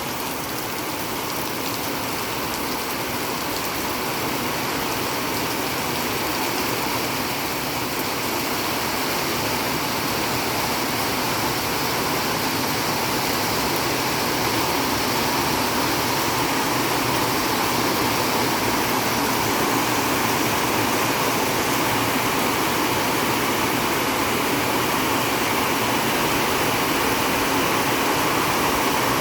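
Steady heavy rain, an even hiss that grows slightly louder over the stretch.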